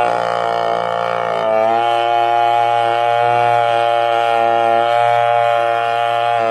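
Chainsaw cutting through a giant angsana tree stump, running steadily under load; its pitch sags near the start and climbs back about a second and a half in.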